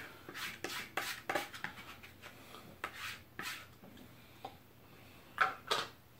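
Metal spoon scraping ice cream off a paper pint lid and carton: a quick run of short scrapes and clicks, then two louder knocks near the end.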